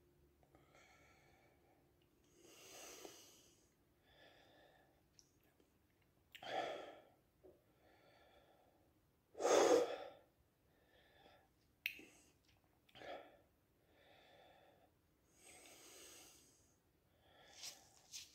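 A man breathing hard through his open mouth: a string of airy, wheezing breaths in and out every second or so, the loudest a little before halfway. It is his reaction to the burn of a freshly eaten Carolina Reaper chili.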